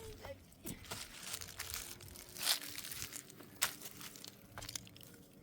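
Irregular crinkling and crackling of something being handled, with two sharper snaps about two and a half and three and a half seconds in.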